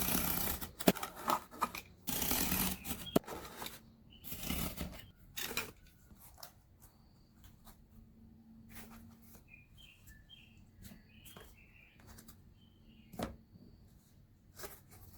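Cardboard being handled and cut: a few rustling scrapes and sharp clicks in the first five seconds, then quieter handling with a few faint chirps.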